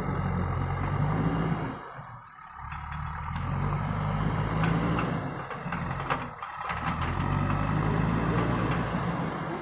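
JCB backhoe loader's diesel engine running, its note dropping away briefly twice, about two seconds in and again about six seconds in.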